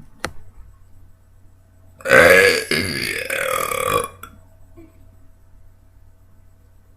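A girl's long, loud burp lasting about two seconds, starting about two seconds in, its pitch shifting partway through.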